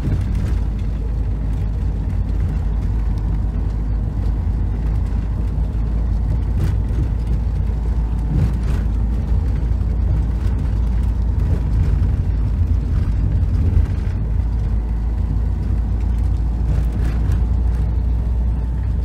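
Motorhome driving on a dirt road, heard from inside the cab: a steady low rumble of engine and tyres, with a few faint knocks and rattles.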